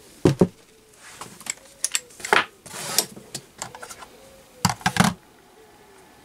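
Tools and a digital kitchen scale being handled and set down on a workbench: a string of separate clicks and knocks through the first five seconds, with a brief rustle about three seconds in.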